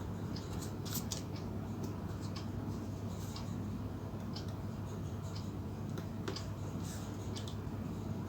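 Small scattered clicks and scratchy scrapes of LED leads and jumper wires being handled and pushed into a plastic breadboard, over a steady low hum.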